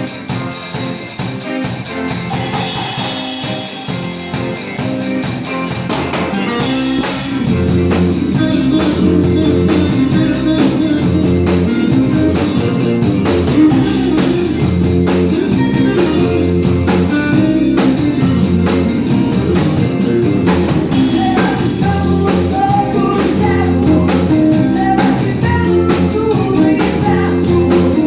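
A rock band playing live at a rehearsal: drum kit and guitar. The sound fills out and gets louder about seven seconds in.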